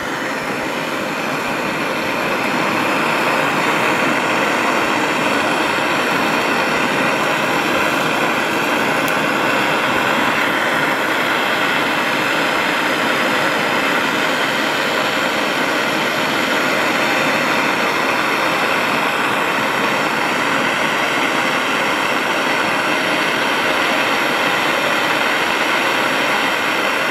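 Go System propane blowtorch burning with a steady hiss as its flame heats a brass pipe and end plate to melt a ring of solder. It grows louder over the first couple of seconds, then holds steady.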